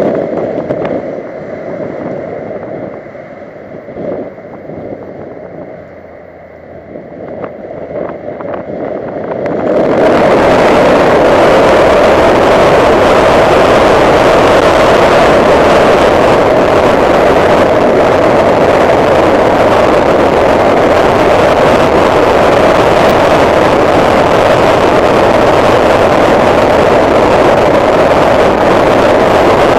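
A 2009 Honda Civic Si driven hard on a wet track, heard from inside the car: the engine running under tyre and wind noise. About ten seconds in, this jumps to a loud, steady rush.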